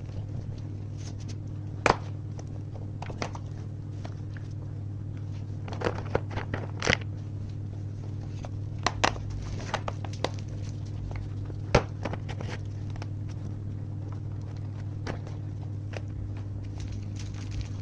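Hand tools working on bolts in a car's engine bay: scattered sharp metallic clicks and knocks of a wrench on fasteners and metal parts, irregular and a few seconds apart, over a steady low hum.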